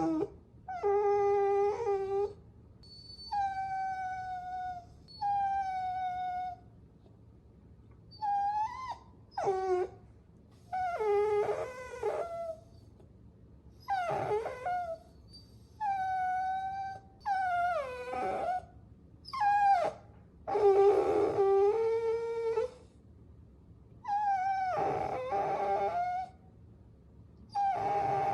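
Puppies whining and whimpering: a long series of high, drawn-out cries, some held level and some bending up and down in pitch, each lasting about a second with short pauses between.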